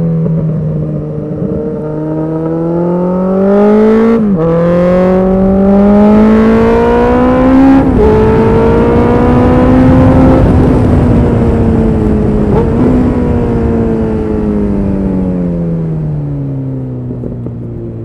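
Yamaha XJR 1300 air-cooled inline-four running through a Dominator aftermarket slip-on muffler while riding. The engine pulls up through two gear changes, about four and eight seconds in, then winds down steadily as the bike slows.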